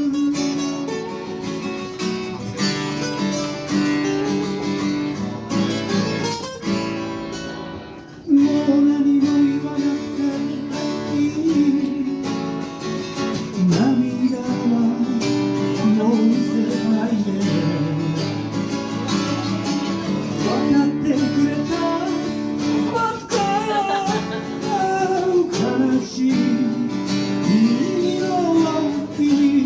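Live acoustic guitar playing through an instrumental stretch of a song, strummed chords with a melody line moving over them. The playing thins out briefly just before eight seconds in, then comes back in strongly.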